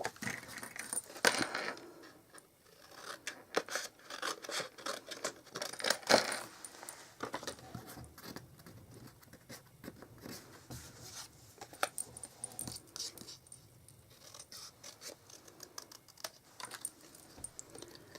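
Tabletop crafting noises: small clicks, taps and paper rustles as a rubber stamp is inked and pressed onto cardstock. Two louder knocks stand out, about a second in and about six seconds in.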